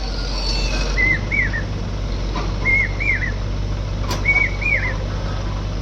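Backhoe loader's chirping reverse alarm repeating about every 1.7 s, each call a short flat whistle followed by two quick rising-and-falling glides, over the steady hum of the machine's diesel engine.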